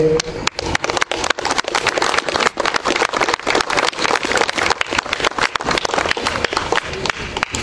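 Crowd applauding: a dense patter of many hands clapping, easing off near the end.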